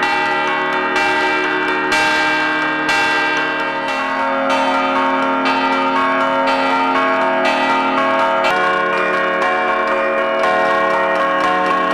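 Several large bronze church bells struck by hand with a wooden mallet, one after another about once or twice a second, their tones ringing on and overlapping at several pitches.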